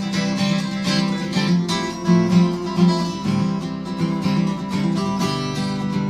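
Acoustic guitar strummed in a steady rhythm, an instrumental passage between sung lines of a live folk song.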